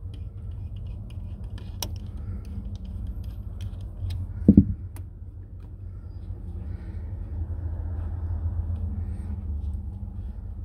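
Hands working a worm-drive hose clamp and rubber exhaust hose on a marine engine's exhaust manifold. A few light metal clicks as the clamp is loosened, a single thud about four and a half seconds in, then rubbing and scraping as the hose is twisted off its fitting, over a steady low rumble.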